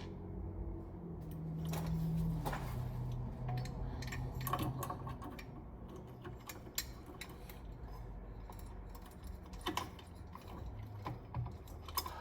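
Light kit being fitted into a ceiling fan's switch housing: scattered clicks, taps and light rattles of parts and wires being handled.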